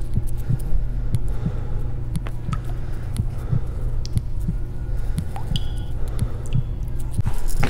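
A steady low drone with soft, regular low thumps about twice a second, swelling in loudness near the end.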